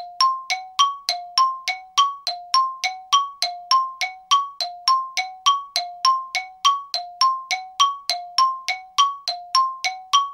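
Bell-like chime tones struck in a steady repeating pattern, about three a second, alternating between a lower and a higher note; they start and stop abruptly.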